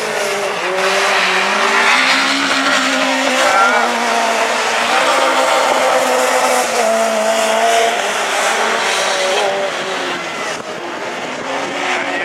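Rallycross race car engines at full racing effort, several at once, their pitch rising and falling as they rev up and drop back.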